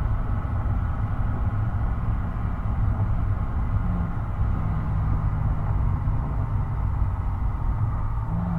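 Mercedes-Benz SL500 V8 exhaust recorded close to the rear tailpipe, droning steadily at an even cruise with little change in pitch.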